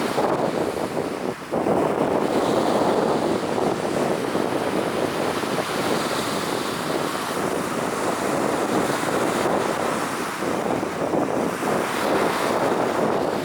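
Steady wind buffeting the microphone, with the wash of sea waves underneath.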